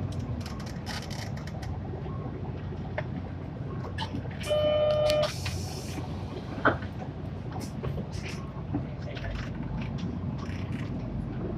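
Inside an Isuzu PJ-LV234L1 city bus on the move: the low, steady rumble of its six-cylinder diesel and the road, with scattered rattles and clicks. About halfway through, a short steady electronic beep sounds, followed at once by a brief hiss.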